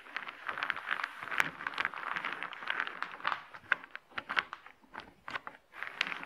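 Small wooden discs clacking against each other and scraping on the table as hands push and shuffle them around: a dense clatter that thins to scattered clicks in the last couple of seconds.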